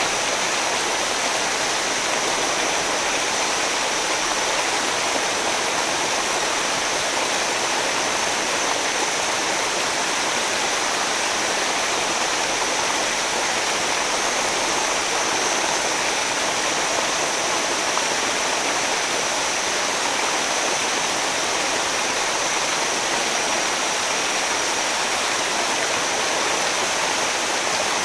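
Waterfall and river rapids: a steady, even rush of water.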